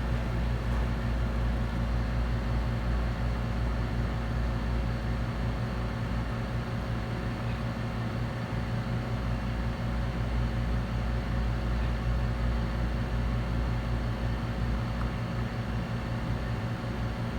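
Steady whir and low hum of a hot air rework station's blower, running evenly while a chip is being soldered back onto a laptop logic board.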